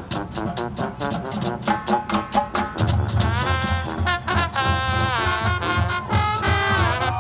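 Marching band playing a swing/jazz-style passage: quick percussion strokes at first, then about three seconds in the full brass section comes in with loud held chords that slide up and down, over a pulsing low bass line.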